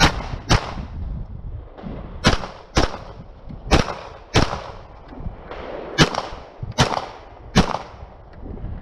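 Nine shots from a Glock 34 9mm pistol fired rapidly at targets, mostly in quick pairs about half a second apart, with short gaps between the pairs.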